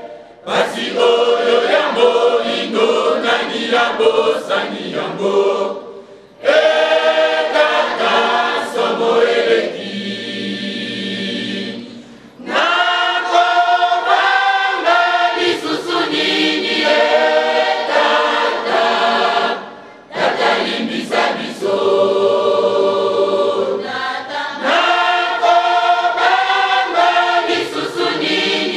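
Mixed choir of men and women singing a church song together, in long phrases broken by short pauses about six, twelve and twenty seconds in.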